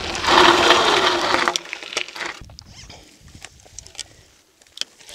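Mountain bike tyres crunching over a loose gravel track as the bike rolls to a stop. The noise cuts out about a second and a half in, leaving scattered small clicks and crunches of gravel.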